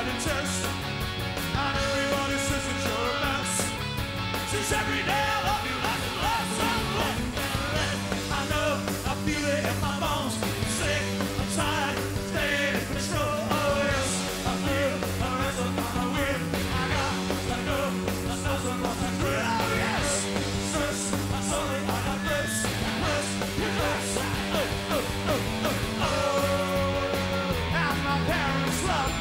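A live rock band playing electric guitars, bass and drums, with a male lead vocal over a steady beat.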